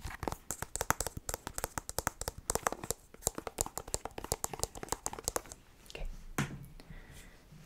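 Fingers tapping rapidly and irregularly on a small white sunscreen package held right at the microphone, ASMR-style. The tapping stops about six seconds in, followed by softer handling.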